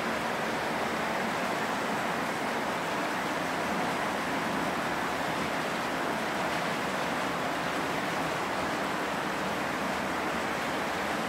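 Model freight trains running on the layout: a steady whir of the locomotive motors and the wheels of many freight cars rolling on the rails.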